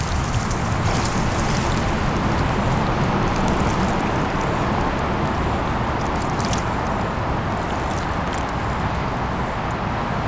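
Steady, loud outdoor rushing noise with a deep, uneven rumble underneath, and a brief faint crackle about six and a half seconds in.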